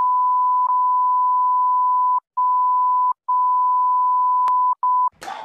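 Censor bleep: a single steady high beep held for about five seconds, broken by a few short gaps, stopping shortly before the end.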